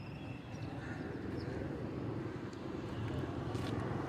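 Outdoor ambience: a steady low engine rumble, with a few faint high chirps.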